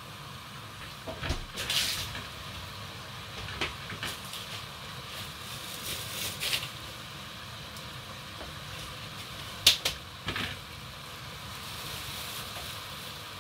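Plantain slices frying in a pot of hot oil, a steady sizzle, broken by a few sharp clatters of utensils and dishes, the loudest about two-thirds of the way through.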